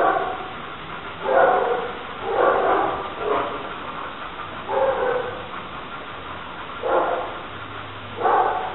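Dog barking repeatedly: about seven short calls, irregularly spaced roughly a second apart.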